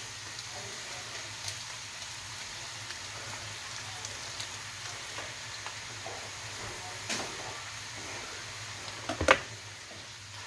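Ground beef, chopped hot dogs, ham and pork chorizo frying in a pan with a steady sizzle, and a few clacks of a utensil stirring against the pan, the loudest about nine seconds in.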